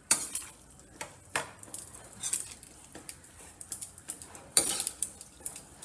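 Metal spoon scraping and clinking against a skillet as seasoned ground beef is stirred, in irregular sharp knocks a second or so apart.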